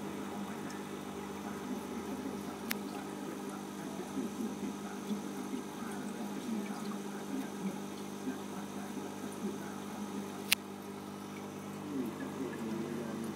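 Steady hum of aquarium filter equipment with faint water burbling over it. Two sharp clicks cut through, a light one a few seconds in and a louder one about ten seconds in.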